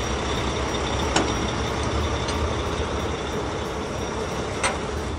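Heavy construction vehicle's diesel engine running steadily with a low rumble, as a cartoon sound effect. Two short sharp knocks, about a second in and near the end.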